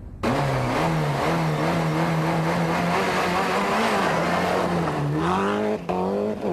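Mitsubishi Lancer Evo IV WRC rally car's turbocharged 2.0-litre four-cylinder engine heard from inside the cabin, holding fairly steady revs with small rises and dips. Near the end it climbs, with a brief break in the sound, over steady road and tyre noise.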